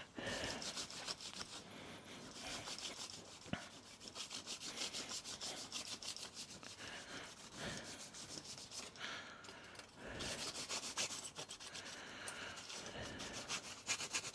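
A cloth wiping and rubbing over a tumble dryer's condenser part in quick back-and-forth strokes.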